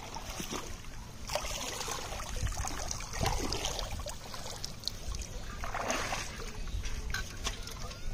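Shallow river water splashing and dripping as a bamboo polo fish trap is worked in it and lifted out, water running off the bamboo. There are several separate splashes, the strongest around the middle and near six seconds in, with small clicks between them.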